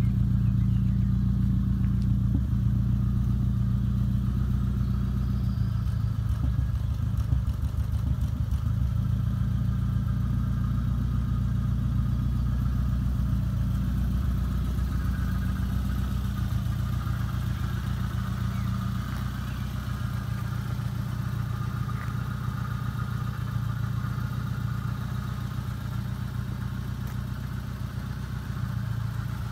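A fast-road 2-litre Ford Zetec four-cylinder engine idling steadily in a 1961 Ford Anglia van.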